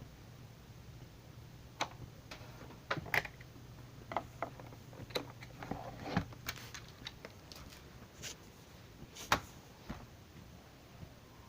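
Scattered sharp clicks and light knocks of a laptop's plastic case and buttons being handled, over a steady low hum.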